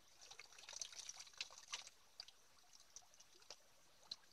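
Faint trickling and dripping of water as a bamboo tube is filled in a shallow stream and lifted out, the splashes thinning to a few scattered drips after about two seconds.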